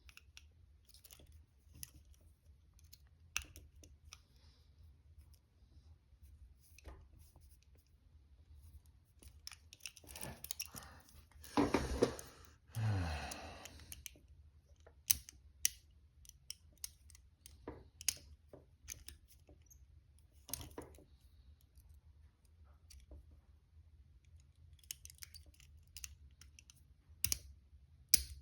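Sparse small metallic clicks and scrapes of a pick working inside a double-locked handcuff lock, with a louder stretch of rustling and handling about ten to fourteen seconds in.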